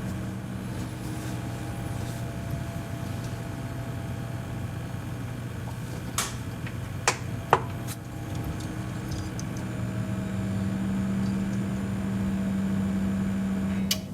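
Desktop PC running with its 14 TB Western Digital helium hard drive spinning: a steady low hum. A few sharp clicks come a little past the middle and one comes near the end.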